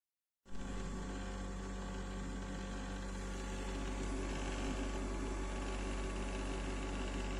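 Steady machine hum with a fan-like hiss, cutting in suddenly about half a second in.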